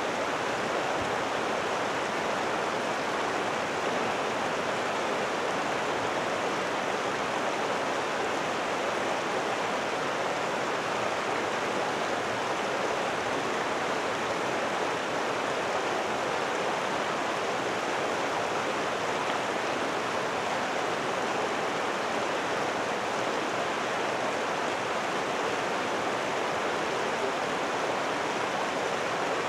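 A steady rushing noise that holds at one level, with no bell strokes, tones or passing train in it.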